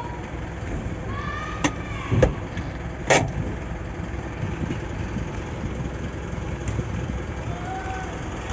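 Isuzu 4JJ1 four-cylinder diesel idling steadily, with three sharp clicks in the first few seconds.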